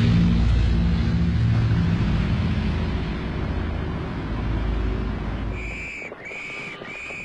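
Propeller aircraft engines droning in a steady low rumble that fades out after about five and a half seconds, followed by three short, high whistle notes in quick succession.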